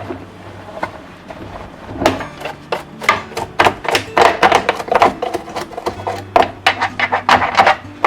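A rapid, irregular run of sharp knocks and clatters of hard objects, starting about two seconds in, over a low steady hum.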